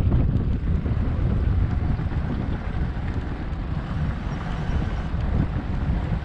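Wind buffeting the microphone as the bicycle rolls along: a loud, unsteady low rumble.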